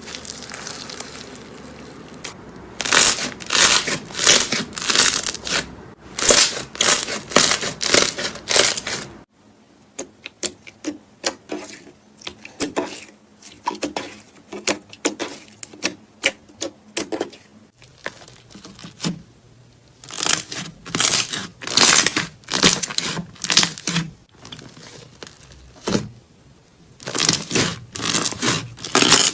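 Slime being squeezed and stretched by hand: clusters of sharp crackling pops and squelches as trapped air bubbles burst, coming in bursts with quieter gaps between them.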